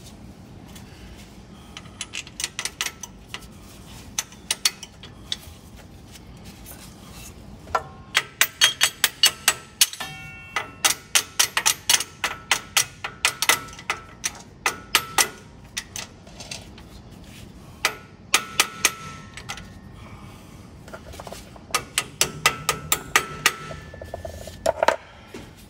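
A hammer driving the forked depth-adjustment handle onto the gauge-wheel axle of a John Deere drill opener. It comes as several runs of quick metal-on-metal blows, and the steel rings briefly after each.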